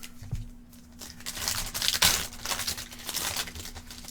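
Foil trading-card pack wrapper crinkling as it is torn open, starting about a second in and loudest near the middle.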